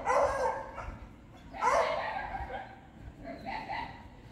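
Dog barking: three barks about a second and a half apart.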